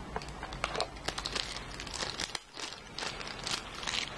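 Plastic wrapping crinkling and rustling in quick, irregular bursts as a remote control is handled and unwrapped, with a short pause about halfway.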